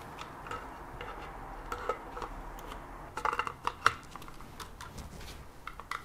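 Light plastic clicks and taps of a mechanical keyboard's parts being pressed and fitted into its case, with a quick run of clicks about three seconds in.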